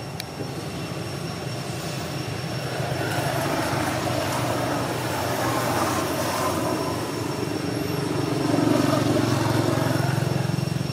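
Steady low engine rumble of motor traffic, getting louder about eight seconds in.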